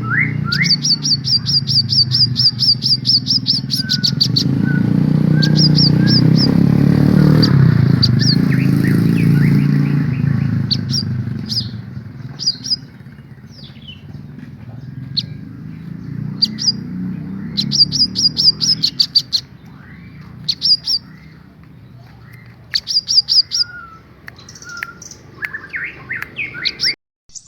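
Sunbirds singing: fast runs of high, sharp chirping notes repeated again and again. A low rumble swells and fades around the middle.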